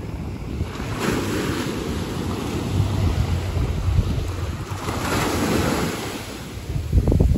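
Wind buffeting the microphone over the wash of waves on the shore. It swells in gusts, with a hard blast of wind on the microphone near the end.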